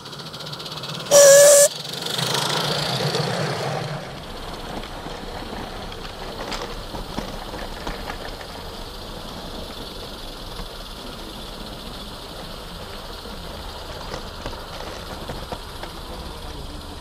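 A live steam garden-railway locomotive gives one short, loud, steady whistle blast about a second in, followed by about two seconds of steam hissing. From about four seconds the train is running, heard from a wagon as a low rumble of wheels on the track with scattered light clicks.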